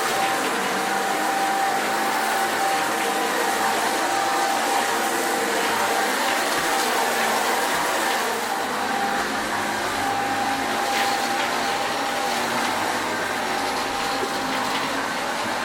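Shark Lift-Away upright vacuum cleaner running steadily, a constant rushing noise with a steady whine through it. It is barely picking anything up because its filters are clogged with baking soda and dirt.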